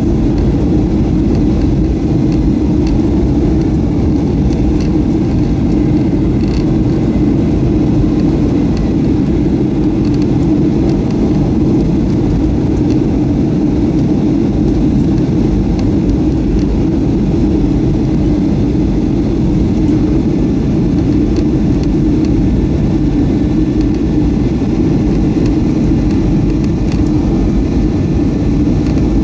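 Steady cabin noise inside a Boeing 737-500 descending on approach: the even, low roar of its CFM56-3 engines and the airflow, with a faint steady whine above it.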